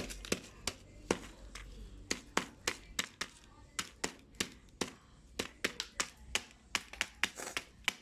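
A quick, irregular series of sharp taps and clicks, roughly three or four a second.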